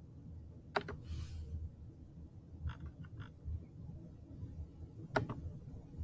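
A few faint, sharp clicks of a computer mouse, the clearest about a second in and another near the end, over a low steady hum.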